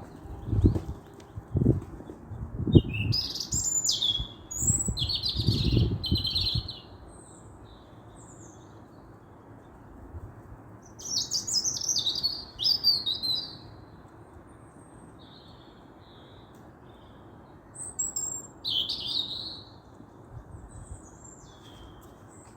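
Small birds chirping in three clusters of short high calls, over a steady low background hiss. Several low thumps come during the first few seconds.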